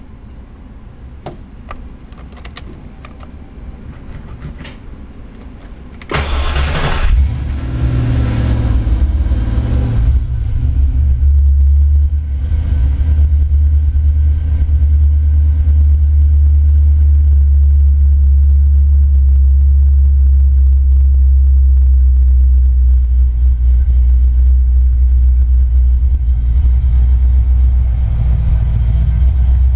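A 1988 Mustang GT's 5.0 L (302) small-block Ford V8, fitted with Mac Pro dump mufflers, heard from inside the car. A few light clicks come first, then about six seconds in it cranks and catches with a brief rev flare. It then settles into a steady, deep idle rumble.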